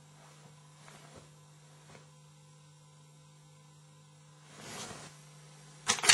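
Steady electrical hum with a few faint ticks. A short rush of noise comes about four and a half seconds in, then a loud, sudden burst near the end.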